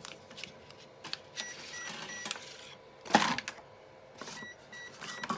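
Sublimation transfer paper rustling and crinkling as the hot aluminum clock blank is peeled off it and lifted from the vacuum press, with scattered light clicks and one louder crinkle about three seconds in.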